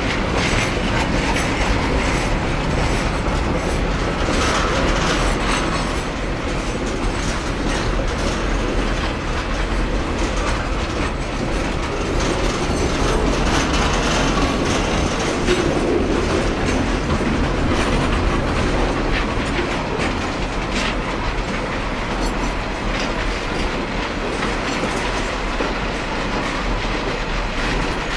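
KiwiRail freight wagons rolling past: a steady rumble of steel wheels on the rails, with repeated clicks as the wheels cross the rail joints.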